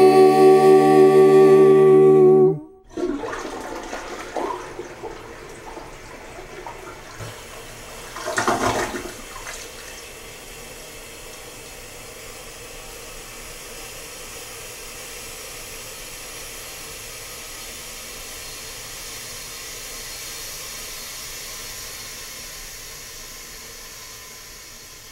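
A cappella voices hold a final chord that cuts off about two and a half seconds in. Then a toilet flushes, with a louder gush about eight seconds in, followed by a long, steady rush of water as the cistern refills.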